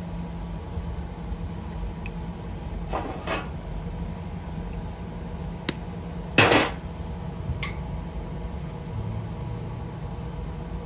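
Welder laying short tack welds on the old sheet-steel tailgate: a couple of brief bursts, the loudest about six seconds in, with a few small metallic clicks, over a steady machine hum. The welds are kept short to avoid warping the thin metal.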